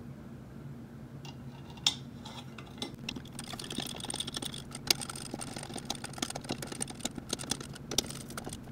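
Screwdriver driving steel stator bolts into an aluminium engine side cover by hand: light irregular metal clicks, ticks and scraping, with one sharper click about two seconds in. The bolts are being run down finger tight before torquing.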